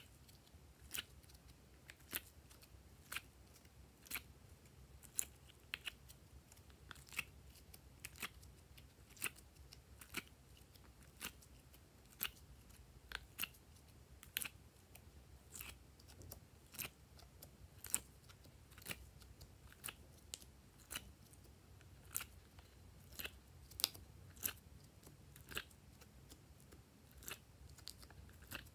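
Hexagonal pieces popping out of a silicone honeycomb mold and dropping into a tub of slime: sharp, sticky clicks about once a second, now and then two close together.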